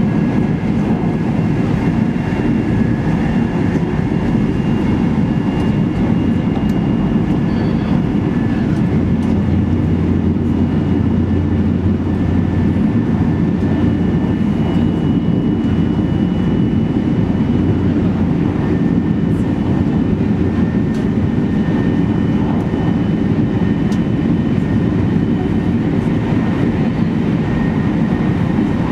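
Steady running noise heard inside the cabin of an E2 series Shinkansen at speed: an even low rumble of wheels on track, with a faint high whine.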